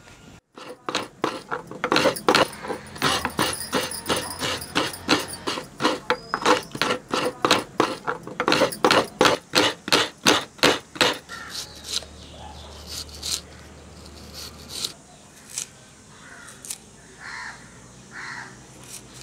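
Fresh coconut being grated by hand against a fixed metal scraper blade: quick, even scraping strokes, about two or three a second, which stop about eleven seconds in.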